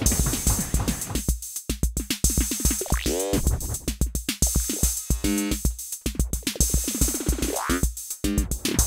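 Roland TR-06 Drumatix drum machine playing a steady beat of kick and hi-hats. Its effects are being mangled into pitched sweeps that bend up and down, about three seconds in and again near the end.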